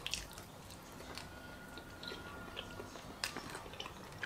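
Faint close-up chewing and biting of thin-crust pizza, with a few sharp crackles of crust near the start and again about three seconds in.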